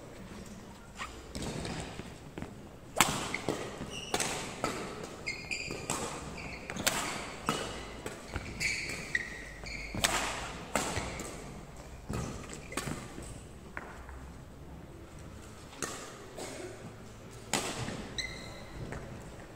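Badminton rally: sharp racket strikes on the shuttlecock, shoe squeaks on the wooden court floor and footfalls, coming thick from about three seconds in, easing off past halfway and picking up again near the end.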